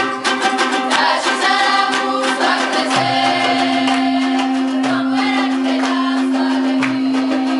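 Georgian folk song sung in parts by a girls' ensemble, accompanied by strummed panduri lutes. From about three seconds in, one voice holds a long low drone note beneath the others.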